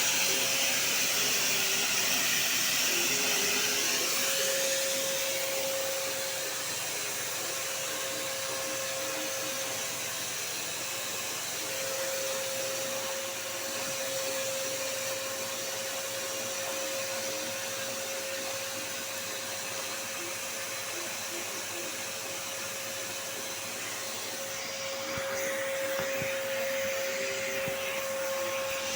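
Samsung vacuum cleaner running steadily: a constant high motor whine over a rush of air. It is slightly louder in the first few seconds and again near the end.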